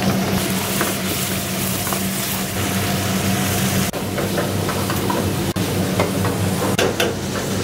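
Mutton korma sizzling in a steel frying pan over a gas flame as it is reheated to order, stirred with a metal ladle that gives a few sharp clinks against the pan. A steady low hum runs underneath.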